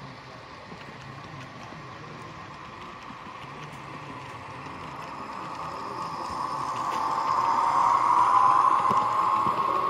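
A model train running along the layout track, a steady whirring with light clicking of the wheels on the rails, growing louder as the coaches roll close and peaking about eight seconds in.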